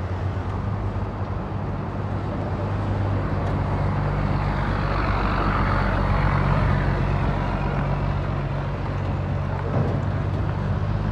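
Large truck's diesel engine running steadily with a low, even hum, joined for a few seconds in the middle by a swelling rush of higher-pitched noise that then fades.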